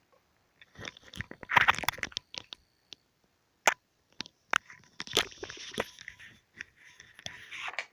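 Sticky slime being handled and pulled apart: irregular crackling and sharp clicking pops in short bursts, with quiet gaps between.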